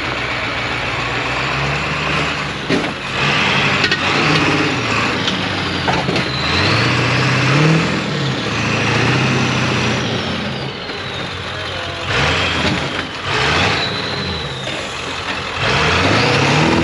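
Off-road truck engine revving up and down under load as it crawls, with a few sharp knocks.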